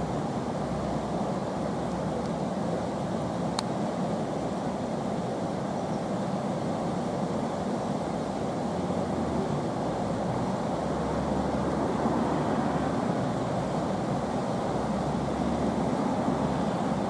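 Steady rush of white water over the slalom course's rapids, with one brief sharp tick about three and a half seconds in.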